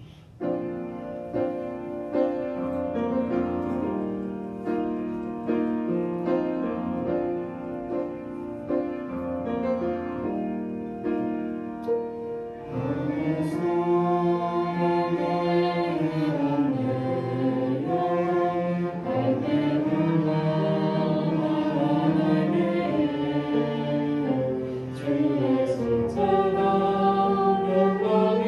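A church orchestra plays a slow worship song introduction; about 13 seconds in the music grows louder and fuller as a choir of singers joins in.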